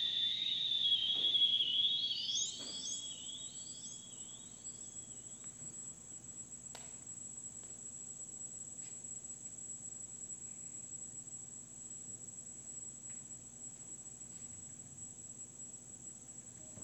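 Electronic tones in a performance score: several thin, pure high pitches glide upward one after another in the first couple of seconds, then settle into a single steady high whine that holds on, quieter. A few faint clicks.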